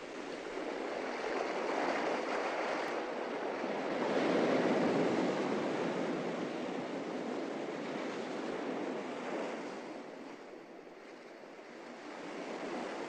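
Ocean surf washing onto a sandy beach, swelling and falling away in slow surges, loudest about four to five seconds in and dying down near the end before rising again.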